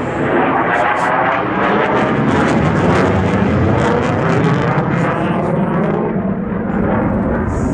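F-16 fighter jet flying past at display speed: a loud, continuous jet-engine rumble and rush with a wavering, sweeping tone.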